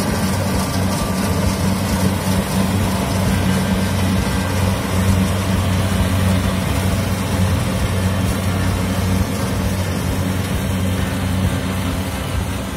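Kubota DC70 combine harvester running steadily as it works through ripe rice: a constant low engine hum with machinery noise over it.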